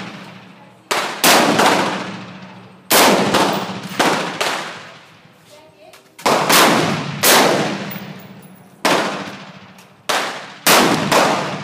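AR-15 rifle firing a string of single shots, about a dozen at uneven spacing, some in quick pairs. Each sharp crack is followed by a ringing tail that dies away over about a second.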